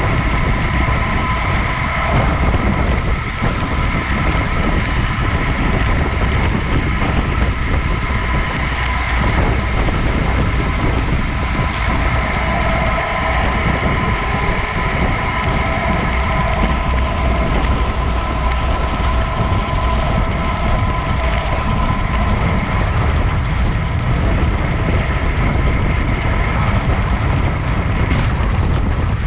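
Wind rushing over an action camera's microphone on a road bicycle at speed, with rumble from the tyres on the asphalt and a steady faint whine running through it.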